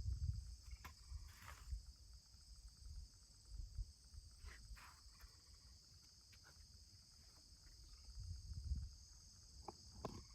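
Faint, steady, high-pitched chorus of insects trilling without a break. Low rumbles, like wind on the microphone, come and go, with a stronger one about eight seconds in.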